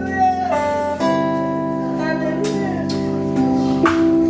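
Slow instrumental background music with long held chords. The chord changes about a second in and again near the end.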